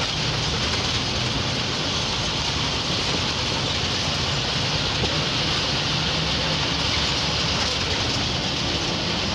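MSRTC bus's diesel engine running steadily while under way, heard from the driver's cabin, with steady road noise.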